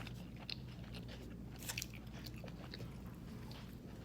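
A person chewing food close to the microphone, with scattered small mouth clicks, over a low steady hum.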